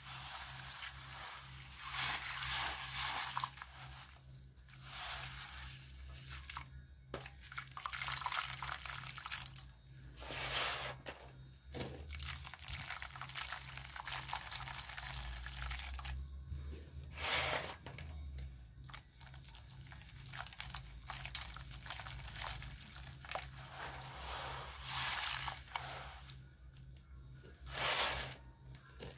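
Wet white lime and colour stones crunching and crumbling as hands squeeze them under milky water, with splashing and sloshing in the bowl. The sound comes in irregular bouts with brief louder peaks.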